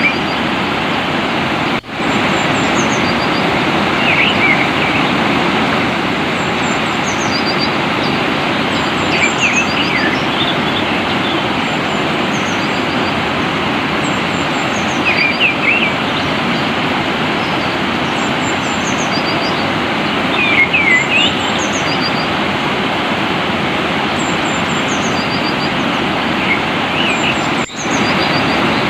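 Steady rush of flowing water with small birds chirping over it in short, high phrases that recur every few seconds. The sound drops out briefly twice, about two seconds in and near the end.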